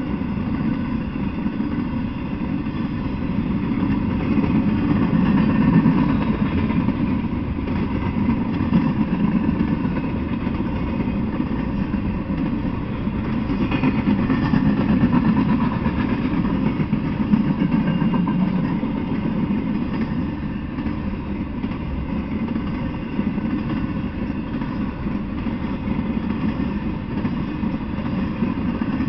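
An intermodal freight train's cars rolling past: a steady low rumble of steel wheels on rail that swells a little now and then.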